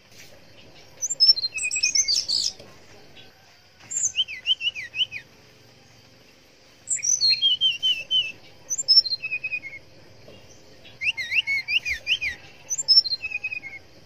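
Brown-chested jungle flycatcher singing in four bursts of quick, high whistled notes and rapid sweeping trills, each a second or two long, with short pauses between them. A faint steady insect hiss sits behind the song.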